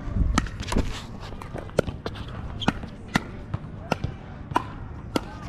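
A pickleball rally: about eight sharp hollow pops, spaced roughly half a second to a second apart, as paddles strike the plastic pickleball and it bounces on the hard court.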